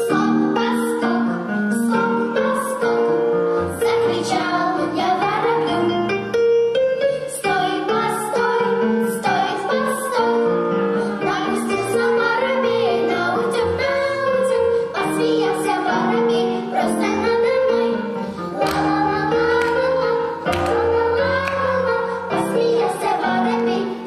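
Girls' vocal quartet of children singing a song in harmony, with piano accompaniment.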